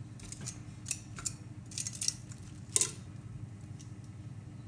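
Metal kitchen tongs clicking and clinking against a plate as they lift pieces of baked pork: a handful of sharp clicks, the loudest nearly three seconds in, over a low steady hum.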